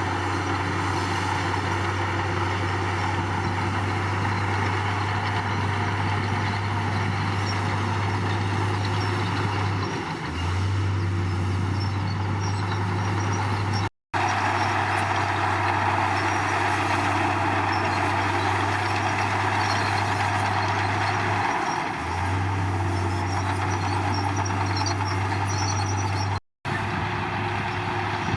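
Komatsu D53 crawler bulldozer's diesel engine running steadily, with a deep low drone and a busy mechanical clatter above it. The low drone drops off briefly twice, and the sound cuts out for a moment twice.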